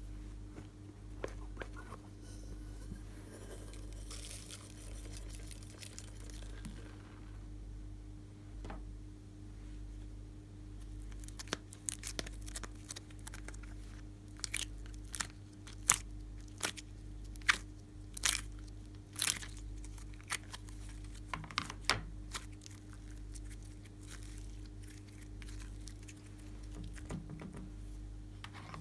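Slime being pulled by the fingers out of the compartments of a plastic slime container: a run of sharp, sticky pops and crackles, over a steady low electrical hum. A soft hiss comes about four seconds in.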